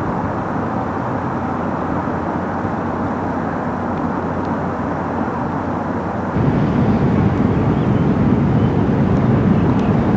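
Steady low outdoor rumble, like distant traffic, that grows louder and deeper about six seconds in.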